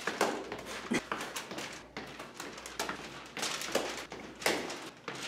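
Footsteps coming down stairs in an echoing stairwell, about one step every three-quarters of a second.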